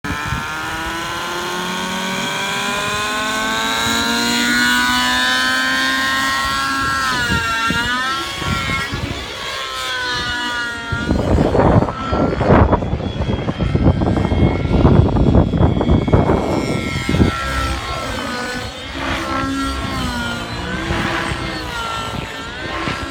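Synergy N7 radio-controlled helicopter's engine running, its pitch rising as it lifts off and then swinging up and down as the throttle changes in flight. Loud rushing bursts drown it out through the middle.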